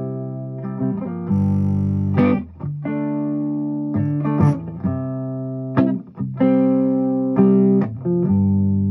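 Gibson ES-335 semi-hollow electric guitar played through a Fuchs Train-45 tube amp running 6V6 power tubes: chords strummed about once a second, each left to ring before the next.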